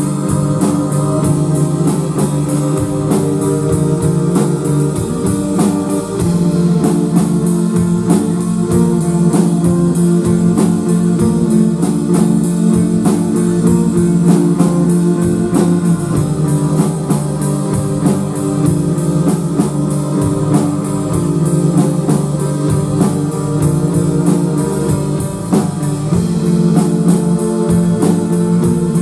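A live rock band playing: sustained electric guitar and keyboard notes over a steady drum-kit beat.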